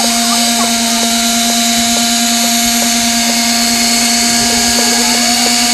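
Kyosho Caliber 30 RC helicopter's two-stroke nitro glow engine running at a steady speed on the ground, with the rotor spinning but not lifting off, during its first start-up check. A steady high buzzing drone that holds one pitch.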